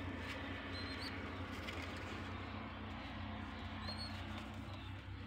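Faint pigeon cooing over a steady low hum.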